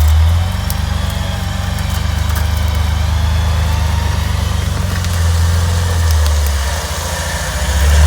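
Jeep engine running under load, swelling in revs a few times and easing off between, as it works to climb a muddy hill with very little traction.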